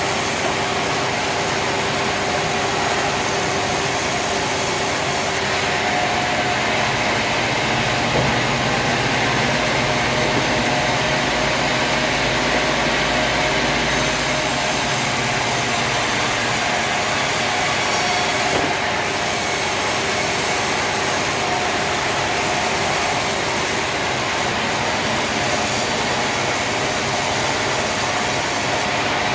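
Steady, loud din of sawmill machinery running, with a few steady tones over a dense noise. The sound shifts abruptly about five and fourteen seconds in and again near the end.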